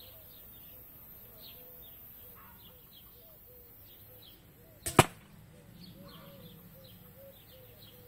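An arrow from an 85-pound recurve striking a dense target of tightly woven carpet layers sandwiched with high-density foam: one sharp hit about five seconds in, just after a faint lead-in.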